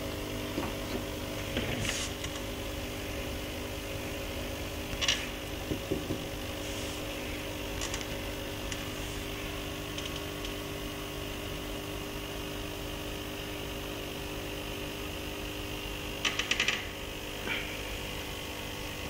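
Steady mechanical hum of aquarium equipment running, with a few scattered light clicks or taps and a quick run of clicks near the end.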